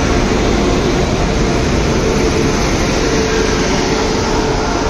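Indian Railways WAP-7 electric locomotive moving slowly past close by, a loud steady running noise with a steady hum.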